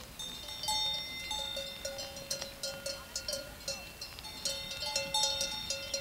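Bells on a grazing flock of sheep clanking irregularly, many strikes with overlapping ringing tones at several pitches.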